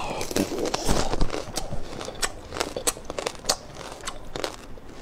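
Close-miked crunching of a frozen fruit ice cream bar being bitten and chewed: a run of irregular, crisp cracks and crackles as the hard frozen bar breaks up.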